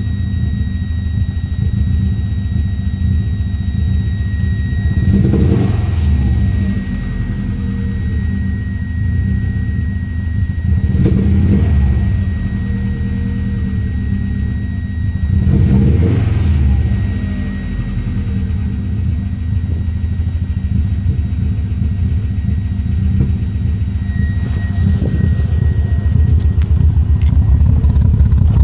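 1994 Subaru Impreza's flat-four engine idling, with the throttle blipped three times, each rev rising and falling back within about a second and a half. The engine has a misfire that the owner suspects comes from a coil pack or the MAF sensor. A steady high whine sits over the idle until about two thirds through.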